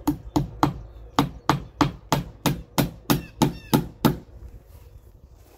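A hammer drives a nail into a Versetta Stone siding panel at its top edge with about a dozen quick, even blows, roughly three a second, stopping about four seconds in.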